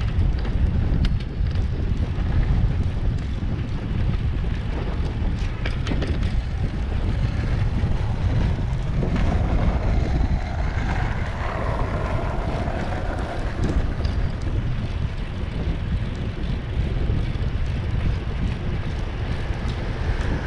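Wind buffeting the microphone of a camera on a moving bicycle: a steady low rumble, with occasional light clicks.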